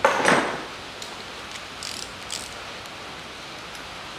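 A short loud rustling clatter, then a few scattered clicks of a ratchet wrench tightening the valve cover bolts on a Daewoo Nexia's 1.5 E-TEC engine, over a steady hiss.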